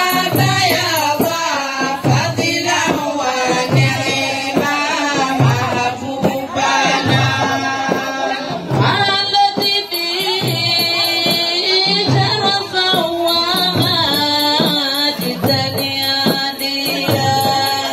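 Comorian women's tari music: a group of large hand-played tari frame drums beating a steady repeating rhythm under women's singing voices.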